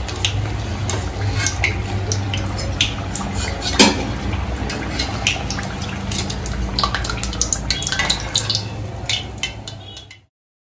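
Steel wire strainer and slotted spoon clinking and scraping against a steel kadhai as fried samosas are lifted out of hot oil, with the oil sizzling underneath and one sharp metal knock a few seconds in. The sound cuts off about ten seconds in.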